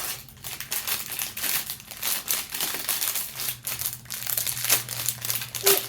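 Plastic packaging crinkling, handled and pulled at in irregular bursts throughout.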